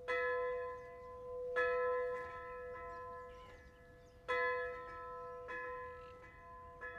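A bell struck about five times at uneven intervals, each stroke ringing on with a clear tone that slowly fades.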